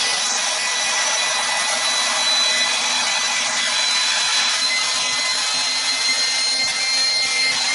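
Electric air pump running steadily as it inflates a PVC inflatable boat's air chambers: a loud, even rushing whir with a thin high whine.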